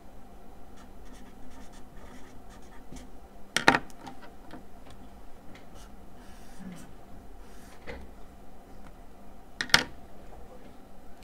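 Marker pen writing on a paper legal pad: faint scratches and squeaks of the pen strokes, with two sharp clicks, one about four seconds in and one near the end.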